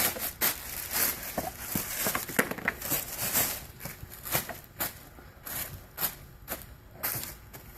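Plastic protective wrap on a cabinet door being cut open and handled: an irregular run of sharp, scratchy crinkles and tears, several a second.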